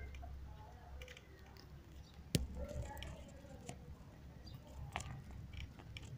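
Low, steady rumble of a wheelchair being pushed along pavement, with faint rattles and one sharp click a little over two seconds in.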